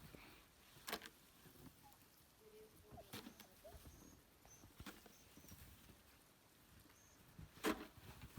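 Faint, scattered knocks or crunches, four louder ones a couple of seconds apart with the loudest near the end, over near silence, with a few faint high chirps in the middle.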